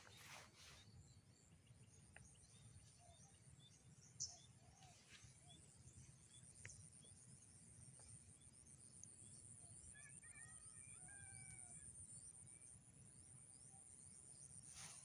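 Near silence: faint open-field ambience with scattered bird chirps, a sharp chirp about four seconds in and a short run of sliding calls around ten seconds in.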